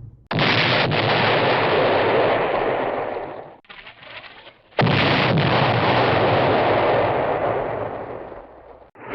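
Two Hanna-Barbera cartoon explosion sound effects, one after the other: each is a sudden blast followed by a long rumble that fades away over three or four seconds, with a short weaker burst between them.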